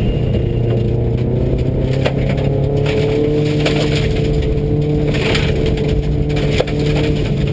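Subaru rally car's engine running hard at speed, heard from inside the cabin, its note rising slowly as it pulls. Gravel rattles and pings against the car throughout, with a sharp knock near the end.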